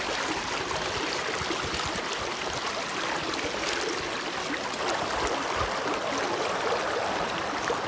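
Shallow rocky stream running steadily, with faint crunches of footsteps on loose stones.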